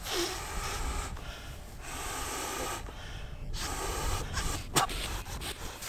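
A man blowing hard by mouth into the valve of a Big Agnes winter air mattress to inflate it: two long breaths with a short pause to draw air between them, and a brief click near the end.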